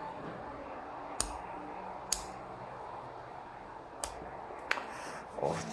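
Four short, sharp metal clicks spread over several seconds, two of them with a soft thud: the folding tools of a multitool pliers being pulled out and snapping into place.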